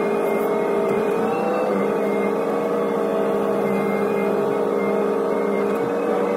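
Hitachi ZX125W wheeled excavator's engine and hydraulics running steadily under load, heard from inside the cab, with a brief rise in pitch about a second and a half in as the hydraulics take up load.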